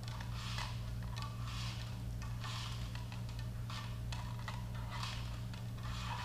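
Short scraping rasps, roughly once a second, of electrical wire being pulled through the plastic anchor-light housing, over a steady low hum.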